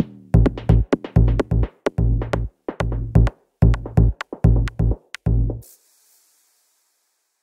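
Electronic background music with a drum-machine beat, stopping suddenly about five and a half seconds in, followed by a brief faint hiss and then silence.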